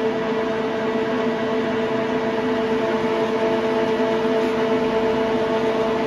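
LeBlond Regal servo-shift engine lathe running under power, its headstock gearing and feed train giving a steady whine made of several tones, with no change in speed. The carriage is traversing under power feed.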